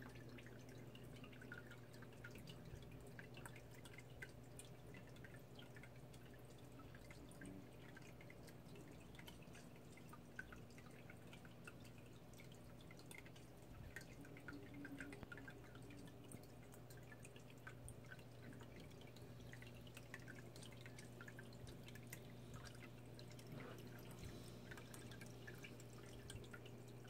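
Faint water dripping and trickling from a running tank filter, over a low steady hum.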